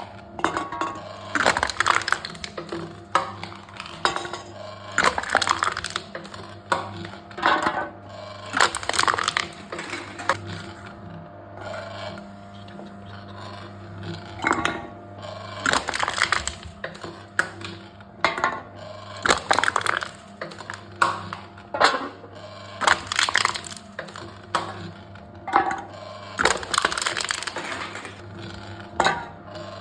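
Aluminium cans being crushed by a machine, a crunching, crackling crush every three to four seconds over a steady low hum.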